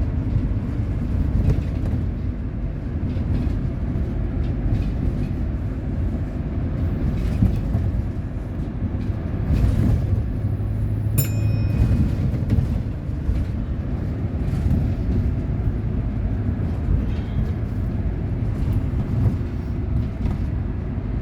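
Steady low engine rumble, with a click and a short pitched beep about eleven seconds in.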